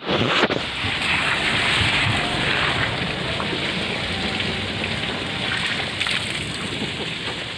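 Steady rush of water running from a garden hose, with a brief knock about half a second in.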